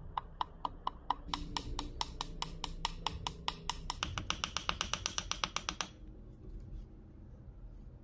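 Hammer tapping a steel ball bearing into the end of a plastic pipe: a rapid run of sharp knocks, speeding up from about five to about eight a second, stopping about six seconds in.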